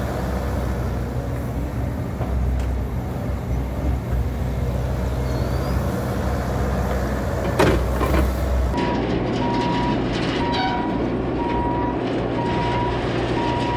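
Bobcat E42 mini excavator's diesel engine running as it digs, with a sharp knock a little past halfway. Then a Bobcat T650 compact track loader running, its reverse alarm beeping steadily.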